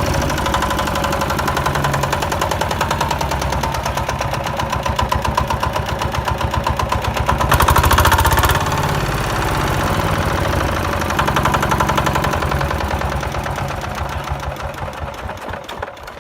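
Small engine of a homemade mini tractor running with a fast, even pulsing beat. It gets louder for about a second around eight seconds in and fades away near the end.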